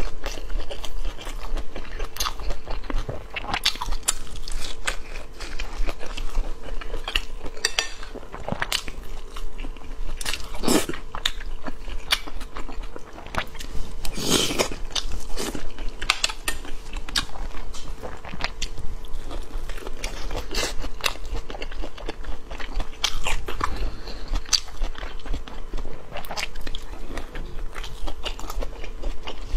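Close-miked mouth sounds of a person eating rolled flatbread wraps (guozi bing) filled with shredded vegetables: repeated crisp bites and wet chewing, picked up by a lapel microphone. A faint steady hum runs underneath.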